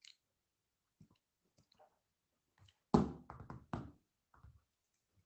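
One sharp knock about three seconds in, followed quickly by a short run of four or five lighter taps; otherwise only faint scattered ticks.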